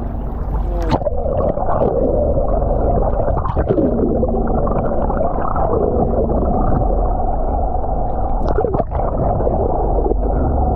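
Water rushing and bubbling, heard muffled through a camera held below the surface. About a second in the sound turns dull as the high end drops away, and from there it runs as a churning wash with wavering tones and a low steady hum.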